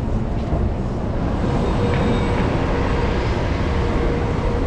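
City street traffic noise: a steady, dense low rumble of passing vehicles, with a thin steady tone joining about a second and a half in.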